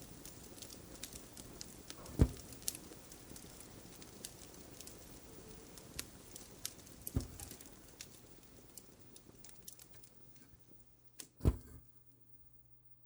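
Fireplace crackling softly: scattered small pops and ticks over a faint hiss, with three louder thumps about two, seven and eleven and a half seconds in. The crackle fades out after about ten seconds.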